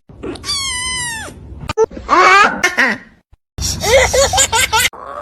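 A drawn-out high call that holds one pitch and then drops at its end, followed by a second wavering call, then a baby's giggling laughter near the end.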